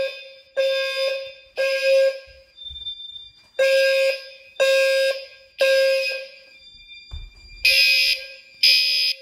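Gentex fire alarm horns sounding the temporal code-3 evacuation signal: three pulses about a second apart, a pause, then three more, with a low tone near 500 Hz beneath brighter horn tones. The system is in alarm after the smoke detector was set off with a test aerosol. The third group near the end sounds harsher and brighter.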